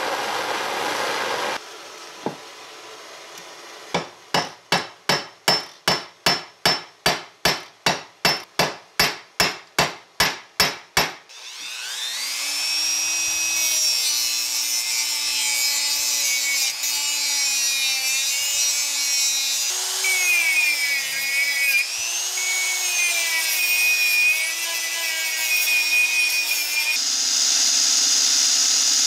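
A torch hisses briefly on a screw head, then about eighteen sharp, evenly spaced strikes come at a steady pace. A rotary tool with a small sanding drum then spins up with a rising whine and grinds the screw head, its pitch dipping and wavering under load. Near the end it gives way to a drill boring a hole through the flattened head.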